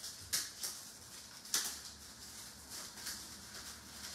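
Upper Deck Allure hockey trading cards slid and flicked against each other in the hands as a pack is sorted: several short rustling strokes, the two loudest about a third of a second and a second and a half in.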